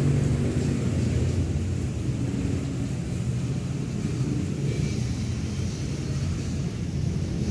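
Steady low rumble with a faint droning hum in it, the hum strongest at the very start.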